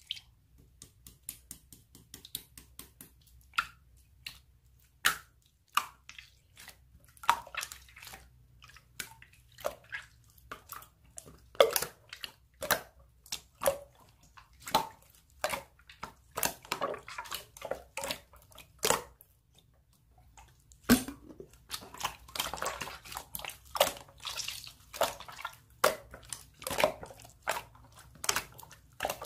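Slime being squeezed and stretched by hand: a long run of irregular wet pops and clicks, thickening into denser squishing twice, with a brief pause about two thirds of the way through.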